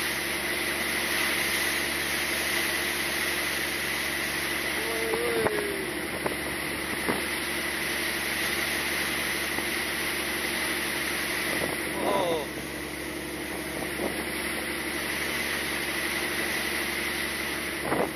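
A fishing boat's engine running steadily, with a short voice-like call about five seconds in and again about twelve seconds in.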